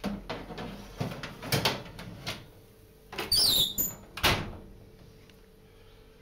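A few knocks as a metal roasting tray goes into a gas cooker's oven. Then the oven door squeaks as it swings up and shuts with a bang a little past four seconds in.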